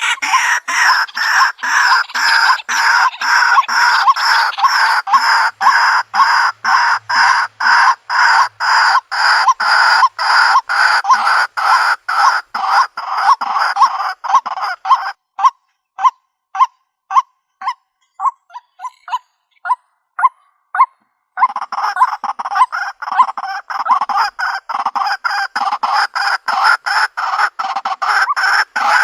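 White-breasted waterhen calling: a long run of loud, harsh repeated notes. They are dense and overlapping at first, thin to single notes at about two a second a little past the middle, then turn dense again.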